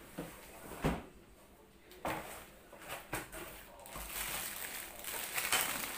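Steel cookware being handled, with a few short knocks and clatters, the loudest about a second in, then plastic packaging crinkling and rustling from about four seconds in as the wrapped pot is brought up.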